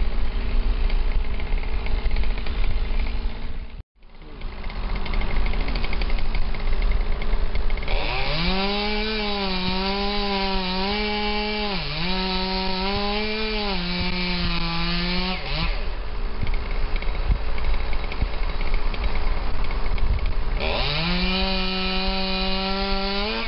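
Two-stroke chainsaw cutting through a broken cedar limb. It is run up to full revs about eight seconds in, and its pitch dips and recovers several times under load. It drops away for a few seconds, then revs up again near the end. Before the saw starts there is only a steady rushing noise, broken by a short dropout about four seconds in.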